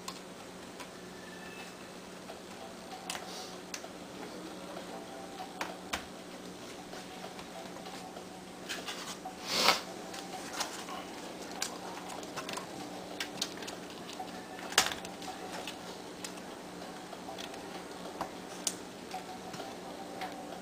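Scattered light clicks and taps from handling a laptop, over a steady low hum, with a louder scrape about halfway through and a sharp click a few seconds after it.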